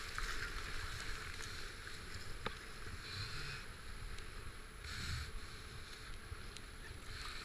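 Rushing whitewater of a river rapid around a kayak, with a couple of brief splashing surges about three and five seconds in.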